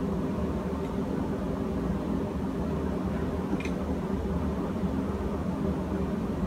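Steady hum of running machinery in a ship's engine room, with a faint click near the middle.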